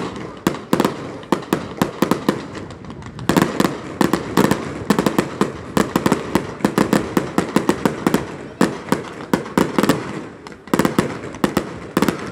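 Fireworks display: aerial shells bursting in a rapid, continuous string of sharp bangs and crackles, several a second.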